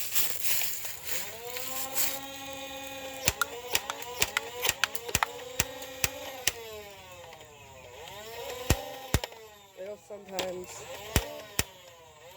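Battery-powered automatic Nerf blaster firing: its motor whines up in pitch and winds back down several times, with sharp clicks of darts being shot. There is a fast run of shots from about three to six and a half seconds in, then a few single shots later.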